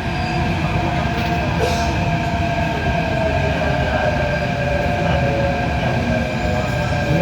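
Delhi Metro train running, heard from inside the coach: a steady low rumble with a held whine over it.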